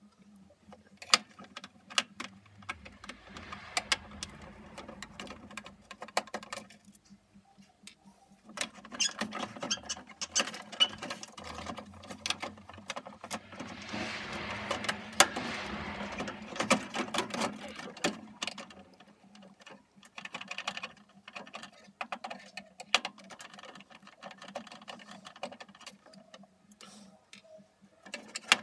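A screwdriver undoing screws on a boiler's plastic control-panel housing, with the panel being handled: irregular sharp clicks, scraping and plastic rattles, busiest in the middle.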